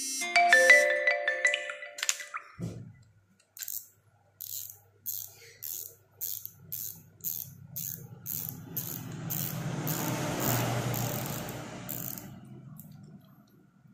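DAM Quick spinning reel, reassembled after a reverse-lock repair, clicking steadily about three times a second as it is worked by hand, with a whir of its gears that swells in the middle and fades near the end. A brief burst of tonal ringing comes first.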